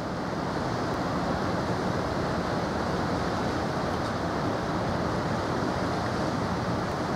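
Steady wind on the microphone and waves on open water: an even rushing noise with no distinct events.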